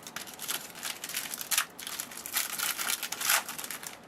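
Plastic crinkling in irregular rustling bursts as trading cards are handled, loudest near the middle and again toward the end.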